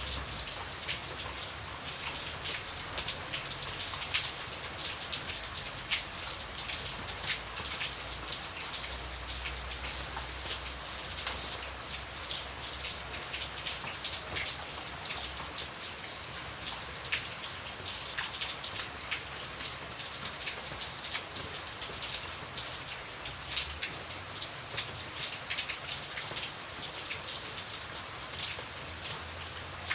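Light, steady rain, with many separate drops pattering on a surface.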